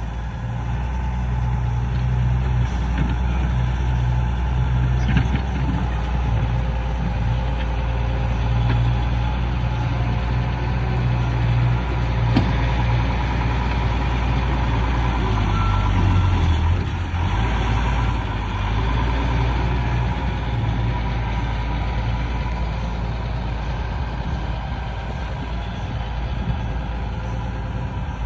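Diesel engine of a Doosan wheeled excavator running steadily as it works its boom and bucket. The engine note shifts briefly about two thirds of the way through.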